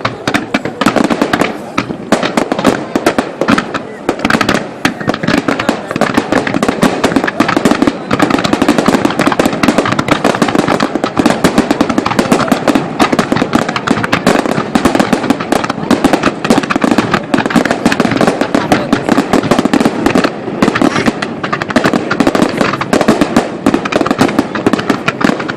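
Fireworks display: a dense, continuous barrage of bangs and crackles with no break.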